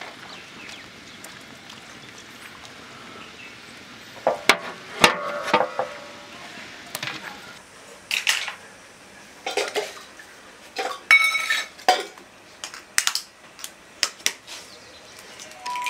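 Metal utensils and steel cookware clinking and clattering: a string of irregular sharp clinks, some with a short metallic ring.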